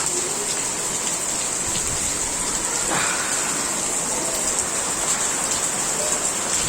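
Heavy rain falling steadily, a dense even hiss of drops on surfaces. About three seconds in, one brief louder splash or gust rises over it.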